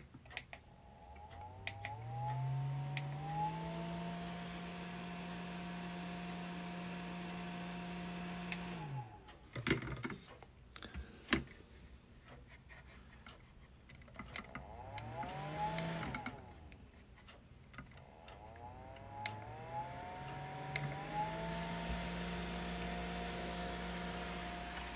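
Ocoopa 6-inch clip-on desk fan's motor starting up with a rising whine that climbs for a few seconds and settles into a steady run, then winds down when switched off. After a few clicks it starts and stops briefly, then spins up again and runs steadily.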